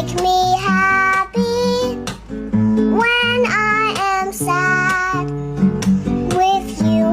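Background music: a children's song with a high, child-like voice singing a melody over guitar accompaniment.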